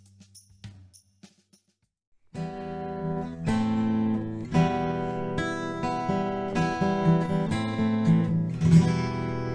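A moment of near silence, then an acoustic guitar starts playing about two seconds in, with chords picked and strummed and changing about once a second.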